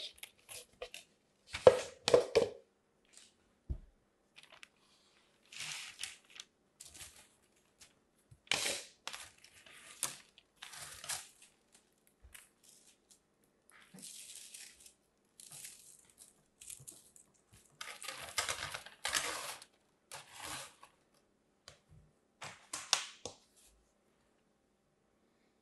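Kinetic sand being pressed and crumbled by hand, in intermittent soft crunching and crackling rustles, with a few sharper knocks of plastic on the table, the loudest about two seconds in.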